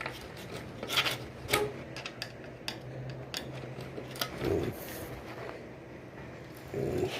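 Hand tool scraping and picking at the inside of a shower door's frame to dig out old silicone and leftover debris, heard as scattered light clicks and short scrapes.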